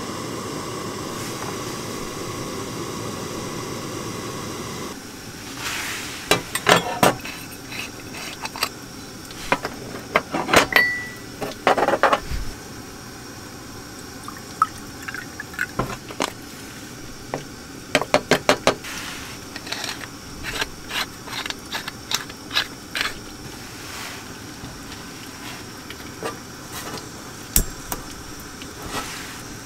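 A canister gas heater hissing steadily for about five seconds, then sharp metal clinks and clatter as a stainless steel moka pot is handled and water is poured into its base, with a quick run of clicks around two-thirds of the way through.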